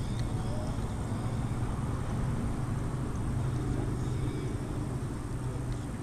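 Small boat motor running steadily at low speed: an even, low drone with no change in pitch.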